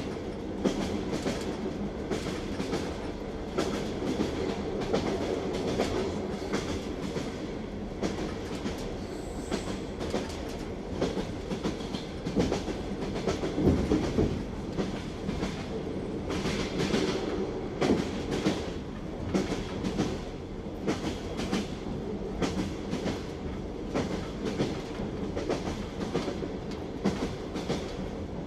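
Railway carriage wheels clattering on the track over a steady rolling rumble, with repeated knocks as the wheels pass over the rail joints.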